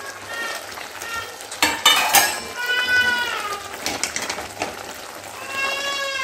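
A cat meowing several times, the longest calls near the middle and at the end, the last one falling in pitch. About two seconds in there is a sharp metallic clatter of ladle and plate against the cooking pan as chicken pieces go into the gravy, over a sizzle from the pan.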